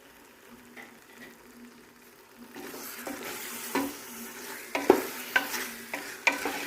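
Chicken pieces going into hot oil and fried masala paste in a pressure cooker: quiet at first, then sizzling sets in about two and a half seconds in, with a spoon stirring and knocking against the pot from about four seconds on.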